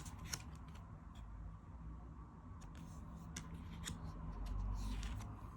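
Tarot cards being handled during a flip-through: several faint, sharp clicks and a soft slide of card on card, over a low steady hum.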